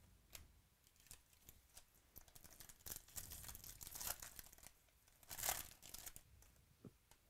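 Foil wrapper of a Topps Chrome baseball card pack being torn open and crinkled, faint, after a few light clicks of cards being handled; the loudest tear comes about five and a half seconds in.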